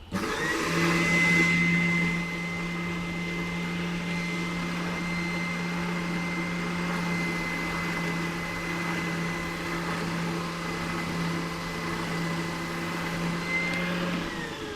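Vacuum used as dust suction for a band saw, switched on and running steadily with a high whine over a low hum, then switched off about fourteen seconds in and winding down with falling pitch. It is louder for the first couple of seconds.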